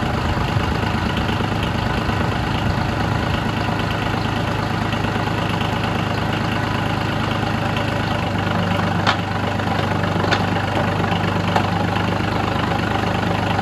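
Small diesel engine running steadily, driving a New Process 435 four-speed transmission and NP231 chain-drive transfer case on a test stand. Three sharp clicks come between about nine and twelve seconds in as the gear lever is worked.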